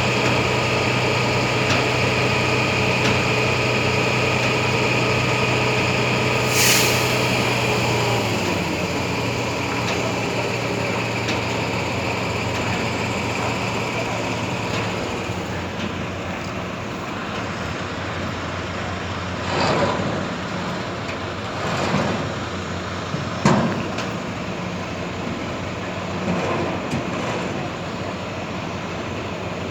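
An engine running steadily, its hum dropping in pitch about eight seconds in. There is a short hiss near seven seconds and a few clanking knocks in the second half, the loudest about three quarters of the way through.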